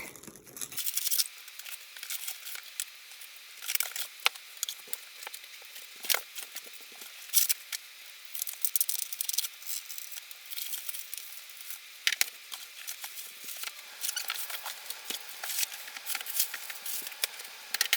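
Irregular rustling, crinkling and clicking of packaging material and plastic parts being handled and pulled out of a box, with scattered sharper taps and crackles.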